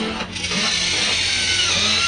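Small electric motors and plastic gearboxes of a WLtoys RC excavator whirring as it works, with a brief dip in the sound about a quarter second in and a thin whine that shifts in pitch.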